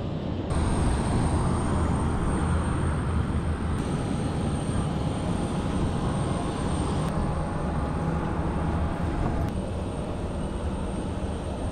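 Steady aircraft engine noise on an airport apron, with a thin high-pitched whine held above it.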